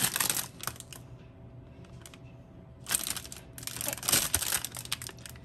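Thin plastic food wrapper crinkling and rustling as it is handled. It comes in short crackly bursts near the start, again about three seconds in, and through the last second and a half.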